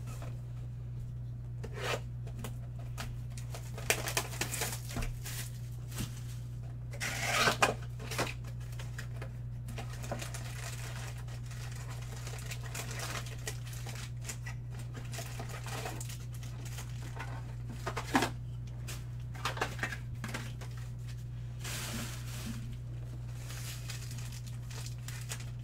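Hands tearing open and crinkling the wrappers of basketball trading-card packs, in short scattered bursts, over a steady low hum.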